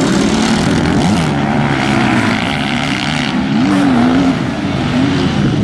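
Several motocross bikes riding a dirt track, their engines revving up and down as the riders work the throttle through the turns and jumps.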